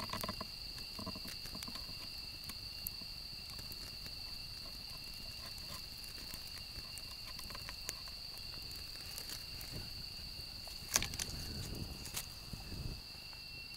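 Insects droning steadily at two high pitches, with small crackles from a wood campfire. About eleven seconds in, a sharp knock, then a couple of seconds of rustling and scraping as the firewood is shifted.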